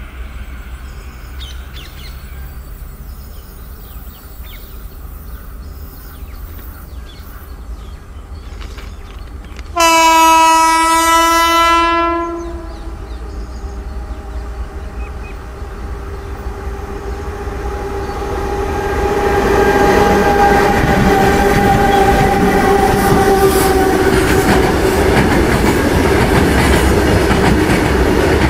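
Alstom WAG-12B twin-section electric freight locomotive sounding one long horn blast, about 2.5 s, some ten seconds in. A steady hum then grows as it approaches. From about two-thirds of the way in, the loud rumble and clickety-clack of loaded freight wagons rolling past takes over.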